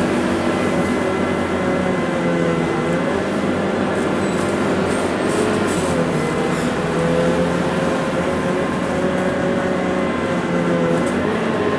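Scania K230UB city bus's rear-mounted diesel engine and drivetrain running under way, heard from inside the passenger cabin. The engine note dips and recovers about three times, with a faint steady whine above it.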